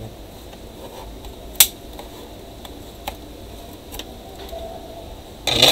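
Plastic case of a MINISO A18 bar speaker being pried open with a plastic pry tool: a sharp snap of a clip letting go about one and a half seconds in, a few smaller clicks, then a louder crackling snap near the end as the case comes apart.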